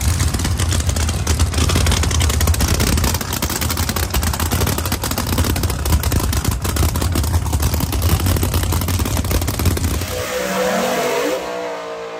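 Supercharged drag-radial race car engines running loud and hard, a dense rumble with a rapid crackle. The sound drops off sharply about ten seconds in.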